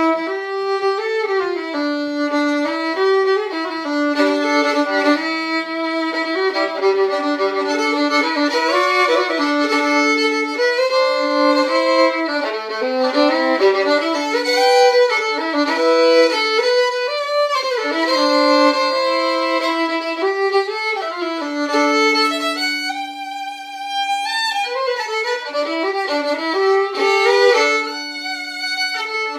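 Solo fiddle bowed, playing a melody note by note, with a long held low note about two-thirds of the way through.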